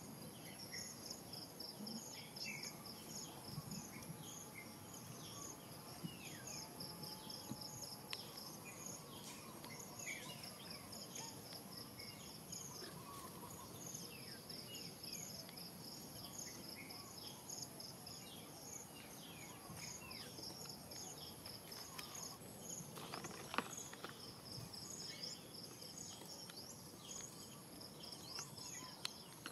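Insects chirping outdoors in a regular run of short, high pulses over a constant high-pitched hum, pausing briefly now and then, with scattered short chirping calls. A brief sharp noise about three-quarters of the way through is the loudest moment.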